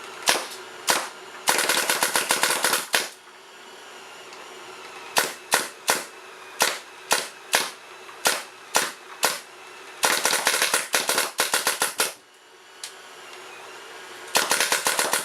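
Azodin Blitz paintball marker firing reballs on compressed air in semi-automatic mode: single shots spaced about half a second apart, broken by three quick strings of several shots a second.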